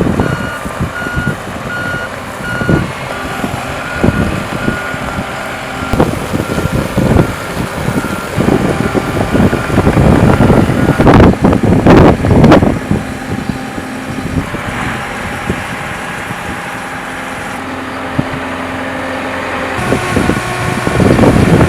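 Remote-controlled 35-ton marine travel lift running, its motion alarm beeping steadily over the engine's rumble. The beeping stops about halfway through, and the engine runs on with a few loud hissing rushes just after.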